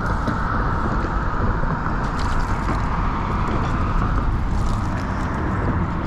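Steady rumble of road traffic, with a few faint ticks over it.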